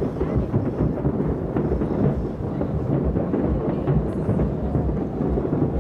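Fireworks booming in a rapid, continuous barrage, the many shell bursts running together into a steady low rumble.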